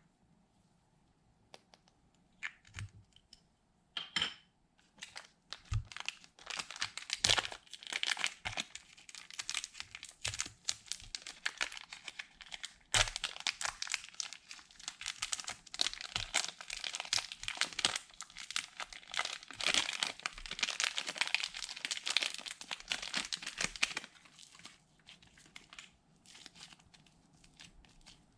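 Slime being worked by hand: a dense run of crackling, popping clicks that starts about four seconds in and thins out near the end.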